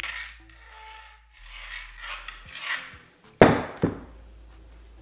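Bent steel barbecue-fork tines, weighted with a 2 lb dumbbell, scraping across the coating of a granite-coated aluminum frying pan in several strokes. About three and a half seconds in come two loud clunks as the weighted fork is set down on the stone countertop.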